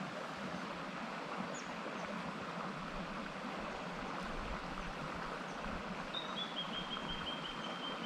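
Small shallow creek rippling steadily over rocks. About six seconds in, a bird starts a high, thin trill that holds almost on one pitch.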